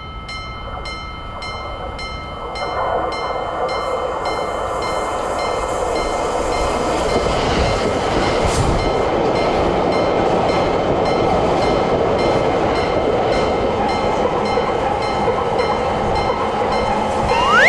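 Japanese level-crossing warning bell ringing at about two strikes a second while a train passes over the crossing. The train's running noise swells in about two seconds in and stays loud. A short rising tone comes at the very end.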